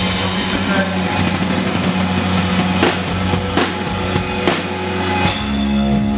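Live rock band playing loud on stage, drum kit to the fore with a string of sharp drum hits. About five seconds in comes a big crash with a held, ringing guitar chord, like the final accent of a song.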